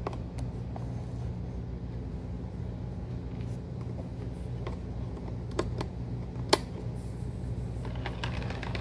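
HO scale model train running: a steady low hum with scattered clicks, one sharp click about six and a half seconds in, and fast, even clicking of the wheels on the track starting near the end as the cars roll closer.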